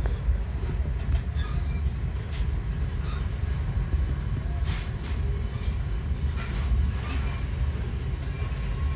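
Rocky Mountaineer passenger train running through a curve: a steady low rumble with a few scattered ticks from the wheels and track. About two thirds of the way in, a thin, steady high wheel squeal sets in as the wheels grind through the bend.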